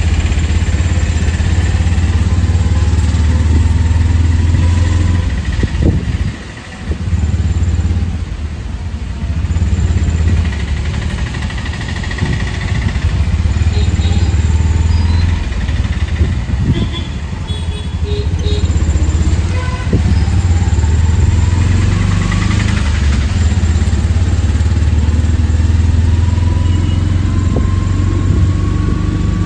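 Auto-rickshaw engine running under way, heard from inside the open cab as a steady low drone. The engine note drops briefly about six and a half seconds in, then picks up again.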